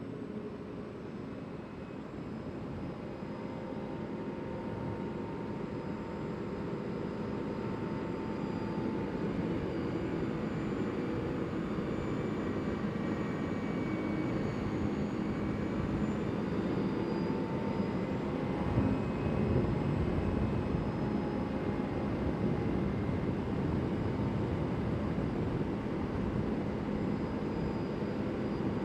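CFMoto CForce 800 ATV's V-twin engine running while riding, growing gradually louder over the first several seconds and then holding steady.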